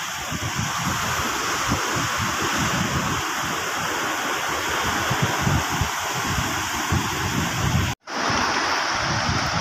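Steady wash of shallow sea water and surf, with wind gusting on the microphone. The sound cuts out for an instant about eight seconds in.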